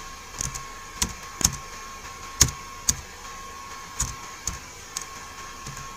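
Computer keyboard keys clicking one at a time, slowly and unevenly, as a short file name is typed.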